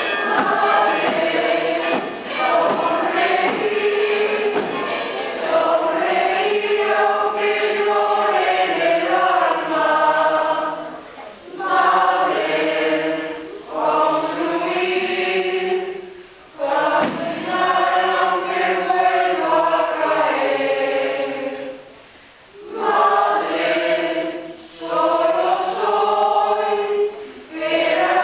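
Mixed church choir of men's and women's voices singing in long held phrases, with short breaks between phrases every few seconds.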